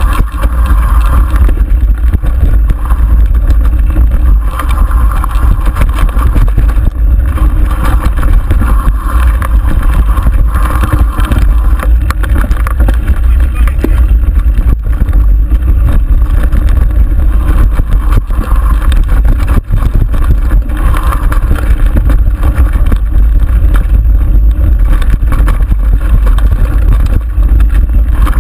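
Mountain bike descending rough dirt singletrack, its rattling and jolting picked up by a handlebar-mounted camera together with wind buffeting the microphone: a loud, constant rumble dotted with small knocks.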